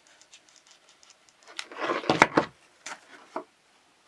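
Paper pieces being handled while their tabs are glued: light rustling and small taps, with a louder rustle and a couple of sharp clacks about two seconds in, then two brief ticks.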